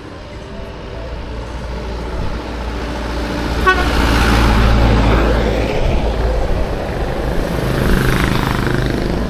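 A road vehicle approaching and passing close by, its engine and tyre noise swelling to a peak about five seconds in, with a short horn toot just before the peak.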